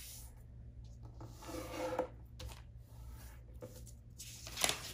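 Hands rubbing over a sheet of letter-size paper folded in half on a wooden table, pressing in the crease. A sharper paper rustle comes near the end.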